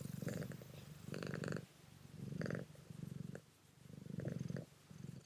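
House cat purring steadily in rhythmic swells, about one per second as it breathes in and out: a content, happy cat.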